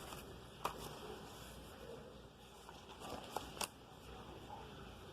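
Quiet room tone with three short sharp clicks: one about half a second in, then two close together about three and a half seconds in.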